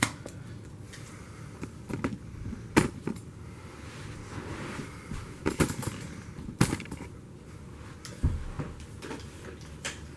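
Handling noise: a few sharp knocks and clicks scattered over several seconds as the camera is picked up and moved, with a dull low thump about eight seconds in. No vacuum motor is running.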